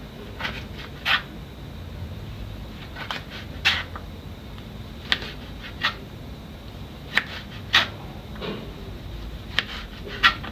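Knife chopping onions and tomatoes on a chopping board: short, sharp knocks at an uneven pace of roughly one a second, over a low steady background hum.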